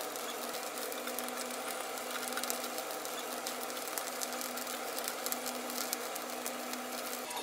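Pork pieces grilling for sisig on a perforated grill plate over a gas burner: a steady sizzle with many small pops of spitting fat.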